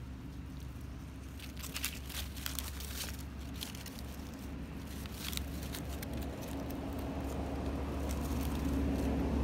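A vehicle engine running with a steady low hum that grows louder toward the end, with scattered crackles of dry leaves crinkling in the first half.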